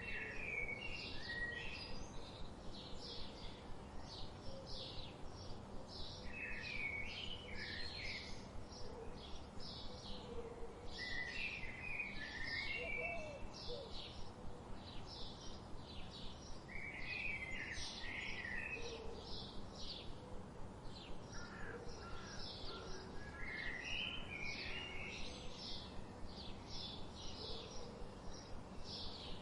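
Birds chirping: a steady run of short high chirps, about three a second, with a lower warbling phrase repeated every five or six seconds, over a faint even background hiss.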